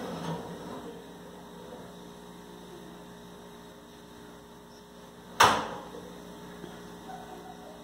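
Steady electric hum, with one sharp clack about five and a half seconds in as the countertop electric oven's door is shut.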